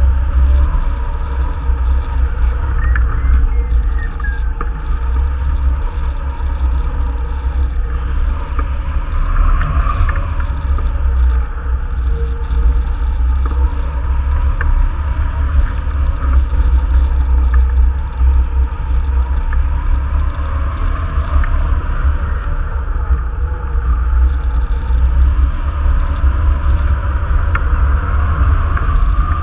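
Wind noise from the airflow rushing past a tandem hang glider in flight: a loud, steady, low rumble of wind buffeting the microphone.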